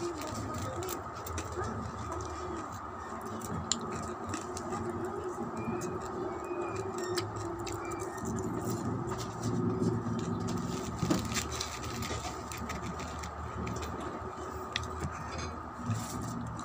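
Crunchy chicharon (fried pork rinds) being chewed close to the microphone, with scattered sharp crunches and the crinkle of a plastic bag as pieces are taken out. A low wavering sound runs behind it through the middle.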